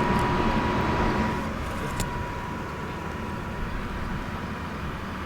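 A vehicle driving, a steady rumble and hiss with a faint steady high tone, dropping a little in level about a second in, and a single light click about two seconds in.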